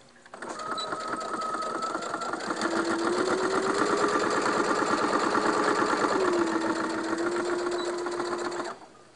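Electric sewing machine stitching a seam, running with rapid, even needle strokes. The motor speeds up about three seconds in, eases back a little after six, and stops shortly before the end.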